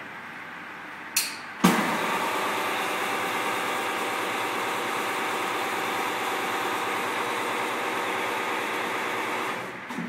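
Chain-link fence weaving machine running with a steady mechanical whirr. It starts with a sharp click about a second and a half in and dies away near the end.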